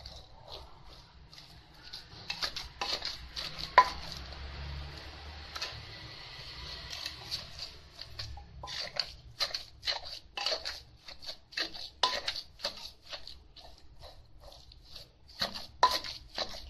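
Wooden pestle pounding a dry, gritty chili-and-herb paste in a clay mortar, a run of short dull thuds. It pounds unevenly with a soft grinding hiss at first, then about three strokes a second in the second half.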